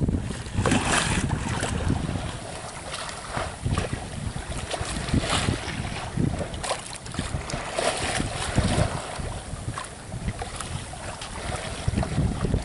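Wind buffeting the microphone in uneven gusts over water rushing and splashing along the hull of an HR-31 Monsun sailboat under sail, with no engine running.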